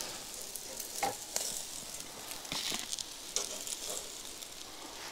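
Bacon cheeseburgers sizzling on a grill grate over a fire pit, with scattered clicks and scrapes as a metal spatula lifts them onto a paper plate.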